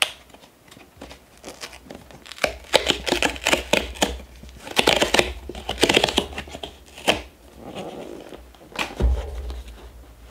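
Hands handling and opening a cardboard mailer box: cardboard scraping, rustling and tapping, busiest in the middle, with a sharp click and then a dull thump near the end.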